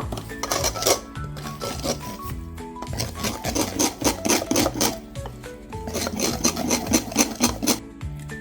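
Background music over two spells of rhythmic scraping strokes, about three a second, from a wet flour batter being stirred in a mixing bowl.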